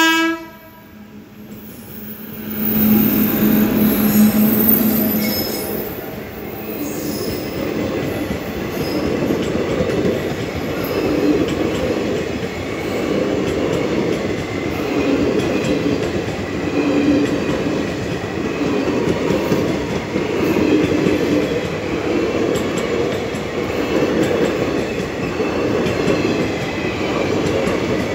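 An Indian Railways passenger train passing a level crossing. The tail of its horn blast cuts off at the very start. A few seconds in comes a loud rumble with a low hum, then a steady rumble of coaches rolling by, with rhythmic wheel clatter over the rail joints.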